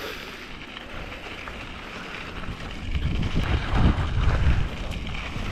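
Wind rushing over the microphone as a mountain bike rolls along a dirt trail, with the rumble of the tyres and bike over the ground growing louder and bumpier from about three seconds in.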